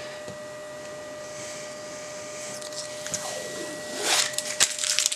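Backing paper being peeled off double-sided tape stuck to an acrylic block, a crackling, rustling tear that starts about three seconds in and is loudest near the end. A faint steady tone hums underneath.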